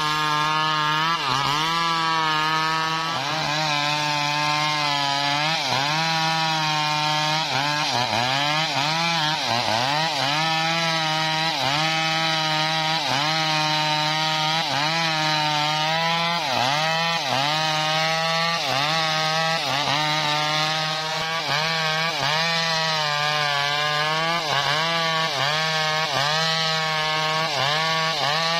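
Stihl MS 381 two-stroke chainsaw ripping a teak log lengthwise under load, running continuously. Its engine pitch dips and recovers about once a second as the bar is pushed into the wood.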